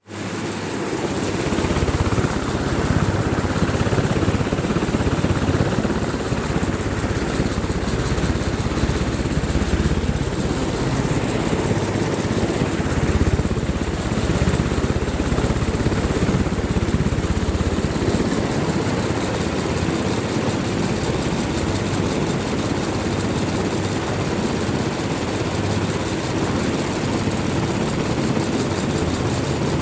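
Atomberg electric fan running with a steady low whirring rumble and a thin high-pitched whine above it: the noise the owner reports as a fault in the fan.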